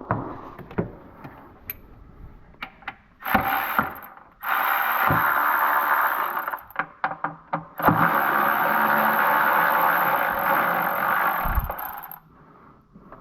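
A power tool running in two long bursts, first about two seconds, then about four, with clicks and knocks of metal tools between them, as intake manifold bolts are loosened.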